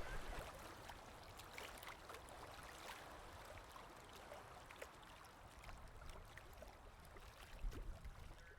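Faint river water with scattered light splashes of canoe paddles dipping as a canoe pulls away.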